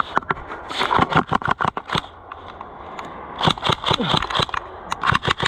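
Airsoft guns firing in several quick bursts of sharp snapping shots.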